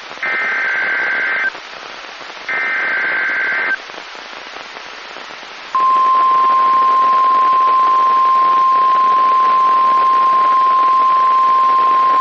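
Emergency Alert System SAME header data tones sound twice over radio static: buzzy digital warbles of about a second each. About six seconds in, the steady 1050 Hz NOAA Weather Radio warning alert tone begins and holds, signalling that a new warning is about to be read.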